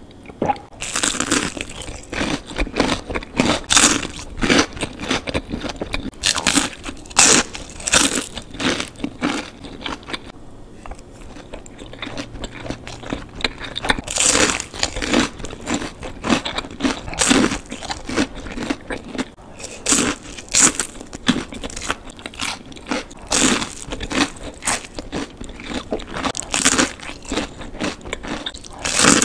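Bites and chewing of crispy fried shrimp tempura: sharp crunches of the batter, coming in clusters with quieter chewing between.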